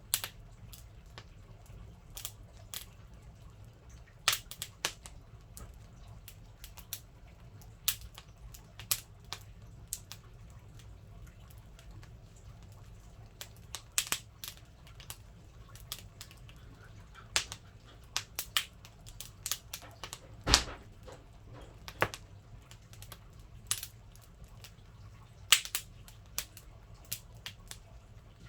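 Wood fire crackling in a wood-burning stove: irregular sharp pops and snaps, a few of them much louder, over a faint low hum.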